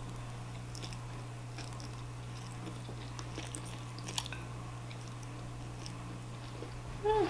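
Close-miked mouth sounds of someone eating udon noodles with chopsticks: soft chewing with scattered small wet clicks, over a steady low hum. A short voiced "mm"-like sound near the end.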